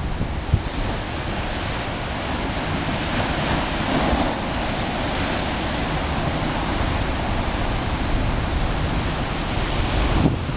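Ocean surf breaking against a rocky shoreline, a continuous rushing wash of waves with no let-up.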